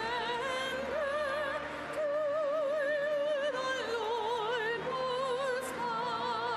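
Classical-style singing with a wide vibrato, a slow melody of long held notes, over a steady sustained accompaniment.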